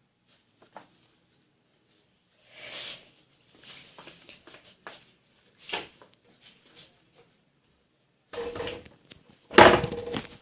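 Scattered rustles and short knocks, ending in a loud thump or bang near the end.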